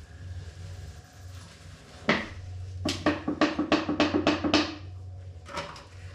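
A quick run of sharp knocks on a hollow surface, about five a second, with a single knock before it and two more near the end, over a low steady hum.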